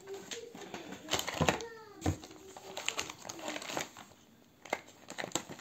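Unpacking a chainsaw chain and its packaging by hand: scattered clicks, light rattles and crinkling.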